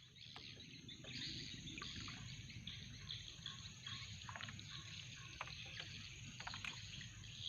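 Outdoor riverside ambience: scattered short bird chirps over a steady low rumble.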